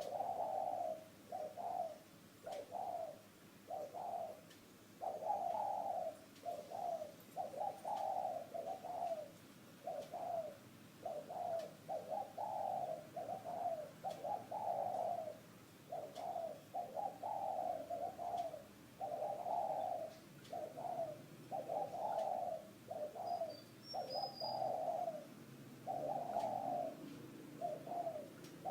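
Spotted dove (cu gáy) cooing over and over in short phrases of low coos, one phrase every second or two with brief gaps, a deep call of the 'thổ' voice type.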